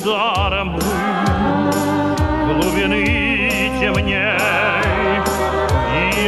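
Live band music with drum hits, a bass line and a melody that wavers with heavy vibrato.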